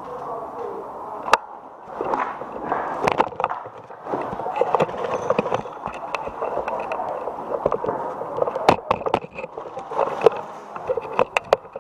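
Scattered sharp cracks of airsoft gunfire: single shots and a few quick pairs, over continuous rustling noise.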